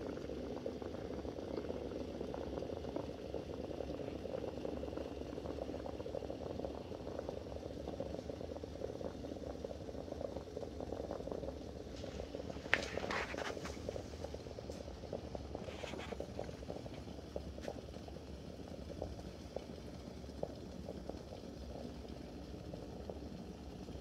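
Vienna balance siphon coffee maker bubbling and gurgling: vapour from the spirit-lamp-heated boiler is forced up through the coffee in the glass chamber, and the bubbling grows quieter in the second half. A brief, sharper noise comes about halfway through.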